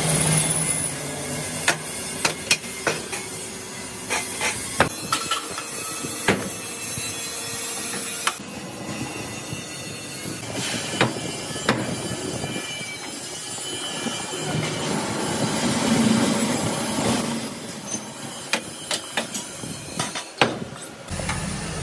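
Metal motorcycle muffler parts being handled and clamped in a steel welding jig: repeated sharp metal clanks and knocks over a steady workshop noise.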